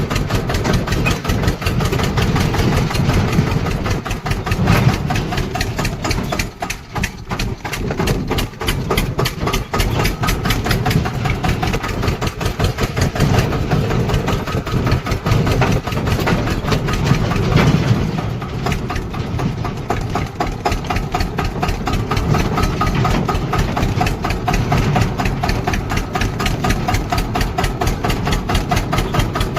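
Eicher 241 tractor's single-cylinder diesel engine running, its firing pulses fast and even, easing briefly about seven seconds in.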